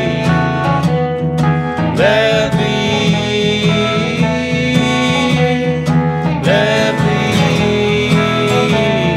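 Folk duo playing a song live: a solid-body electric guitar and an acoustic guitar strummed together, with two men's voices singing over them.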